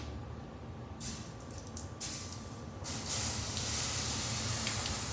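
Water poured onto hot welded metal, hissing as it flashes to steam; the hiss grows fuller and steadier about three seconds in.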